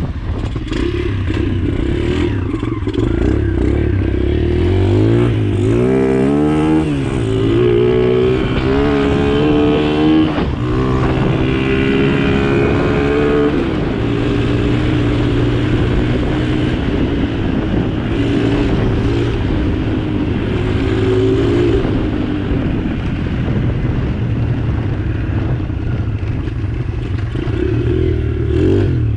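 Motorcycle engine running while being ridden. Its pitch rises and falls several times in the first half as it speeds up and eases off, then holds steadier.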